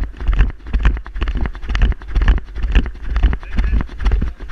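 A dog trotting on a dirt trail, heard through a GoPro in a vest mount on its back: each stride jolts the camera and gives a heavy thump, about twice a second, with lighter knocks between.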